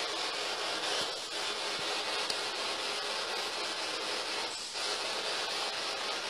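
Spirit box, a radio rapidly scanning through stations, putting out a steady static hiss that dips briefly twice.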